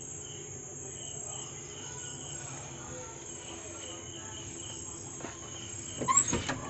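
Crickets chirping: a steady high trill with a softer pulsing chirp repeating beneath it. About six seconds in come a few sharp clicks and a short squeak as a door is opened.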